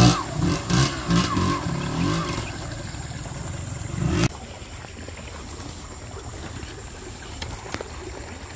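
Enduro motorcycle engine revving up and down, then settling to a lower, steadier run before it stops abruptly about four seconds in. Only a faint steady hiss follows.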